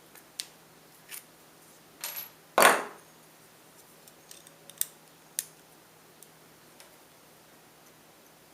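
Hand tools working thin tin-can metal: scattered sharp metallic clicks and clinks, with one louder, longer scrape about two and a half seconds in.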